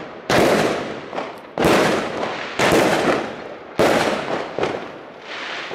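Lesli Thunder Kong Brutus 36-shot fireworks battery firing shells that burst overhead with loud bangs about a second apart, five or six in a row, each trailing off briefly.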